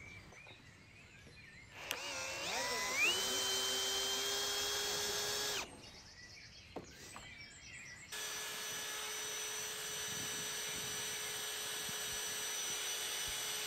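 Electric power drill running in two bursts. The first spins up with a rising whine and holds for about four seconds; after a pause of a few seconds the second runs at one steady pitch for over five seconds.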